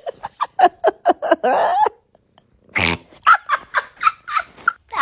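A cat making a quick run of short chirping meows, then a brief noisy snort-like burst, then another run of short chirps.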